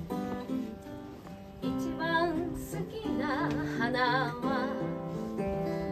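Acoustic guitar strummed in a slow folk ballad, with a woman's singing voice coming in about two seconds in, holding wavering notes for a couple of seconds.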